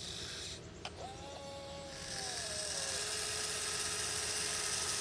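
Huina 1580 radio-controlled excavator's small electric motors whining as it works, with a click just before the first second and a steady hiss joining about two seconds in.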